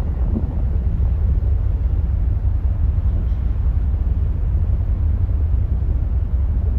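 Wind buffeting the microphone on a ferry's open deck: a steady, gusty low rumble with a noisy haze above it.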